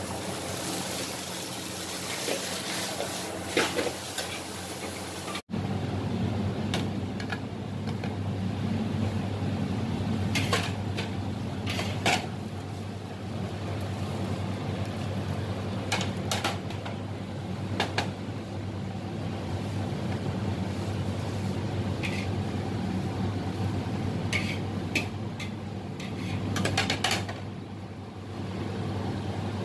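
Kwetiau noodles stir-fried in a wok over a gas flame: sizzling, with a metal spatula scraping and knocking against the wok. About five seconds in the sound cuts to a steady low kitchen hum with occasional sharp clicks.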